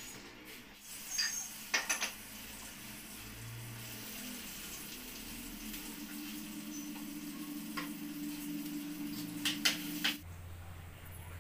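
Metal cookware clinking and scraping as a spatula works a frying pan on a gas stove, a few sharp clinks over a steady hiss. The sound stops abruptly shortly before the end.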